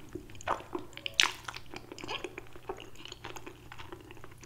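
Wet chewing and smacking of a mouthful of creamy fettuccine alfredo, with many small wet clicks and a louder smack about a second in.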